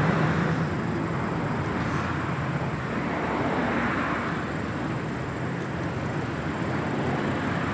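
Steady motor-vehicle noise, swelling and fading about halfway through.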